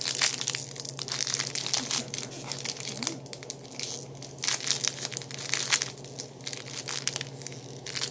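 Small plastic packet crinkling and crackling as fingers pinch and work it open, in short bursts with brief pauses between them.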